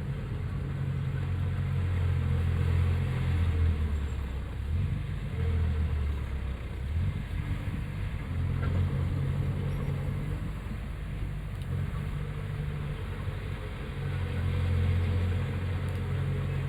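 Heavy diesel earthmoving machinery running, the engine note swelling under load and easing off several times.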